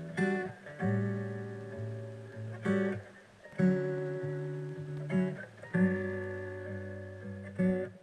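Acoustic guitar music: chords strummed and left to ring, struck again every second or two.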